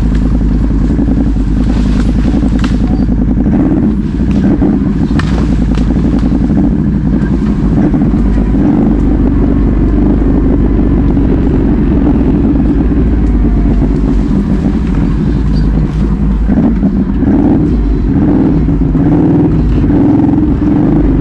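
ATV engine running steadily, a continuous low drone with a few sharp knocks in the first few seconds.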